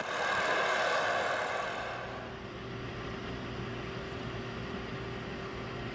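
Heavy construction machinery running steadily at a piling site: the engine and vibrator drive of a piling rig give a low, even hum. A brighter rushing noise in the first two seconds drops away, leaving the steady hum.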